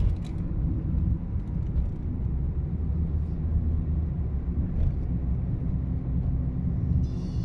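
Steady low rumble of a moving car heard from inside the cabin: engine and tyre noise while driving.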